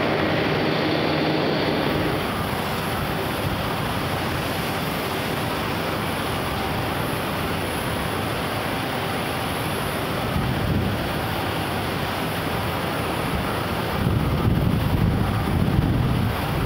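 Wind rushing over the microphone, a steady roar with stronger low gusts near the end. For the first two seconds a steady machinery hum sits under it, then stops.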